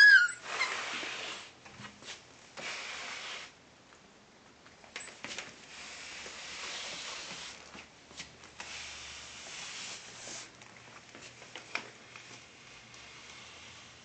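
Slippers shuffling and scuffing over a wooden floor in several separate stretches, with a dachshund puppy hanging on to one slipper and dragged along. A short high puppy yelp comes at the very start.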